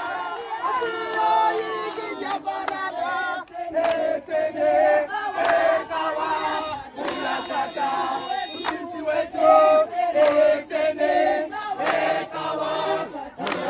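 A crowd of women and men singing together with hand clapping and occasional shouts.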